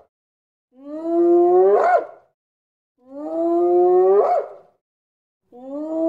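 Hyena whooping: long calls, each rising slowly in pitch and ending in a quick upward flick, repeated about every two seconds. Two full calls, with a third starting near the end.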